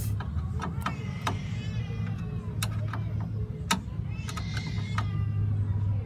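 Scattered light metallic clicks and taps of a screwdriver and lock rods against a door-lock actuator's steel mounting bracket inside a van door, over a steady low hum. Faint high wavering calls come about a second in and again near five seconds.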